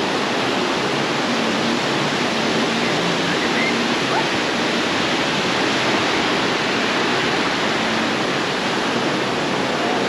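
Surf on a sandy beach: a steady, unbroken rush of waves washing ashore, with faint voices underneath.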